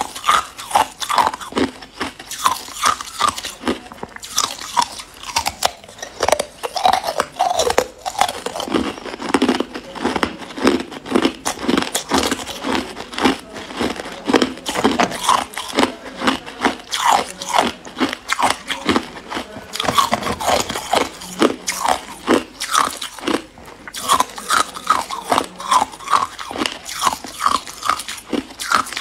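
Ice cubes bitten and chewed, a close, continuous run of sharp crunches and cracks as the ice breaks between the teeth.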